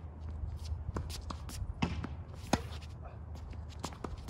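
Tennis rally on a hard court: a Babolat Pure Aero VS and the opponent's racket striking the ball, with the ball bouncing, giving a series of sharp pops, the loudest about two seconds in.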